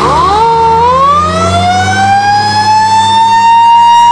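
Fire engine siren wailing, its pitch climbing slowly the whole time, with a brief level step early on, over a steady low hum.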